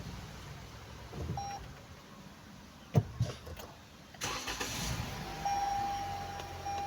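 A sharp click about three seconds in. A little after four seconds the Toyota RAV4's engine starts with a surge, then settles into a steady idle. From about five and a half seconds a long electronic tone sounds over the idle, broken by brief gaps.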